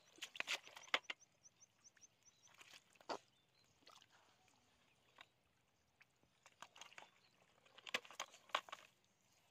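Wet mud squelching and slapping as hands dig into it and scoop handfuls into a bucket, in two short bouts with a quiet stretch between.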